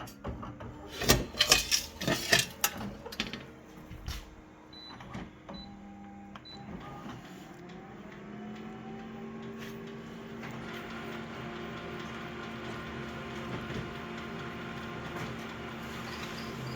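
Clattering and knocking as a metal microwave back plate is handled and shifted on a photocopier's glass, then the photocopier starts a copy: a motor whirs up in pitch and settles into a steady running hum.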